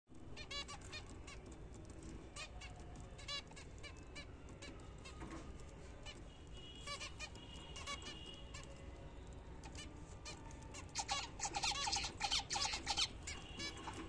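Zebra finches calling: short nasal beeping calls scattered throughout, growing into a dense, louder run of calls about eleven seconds in.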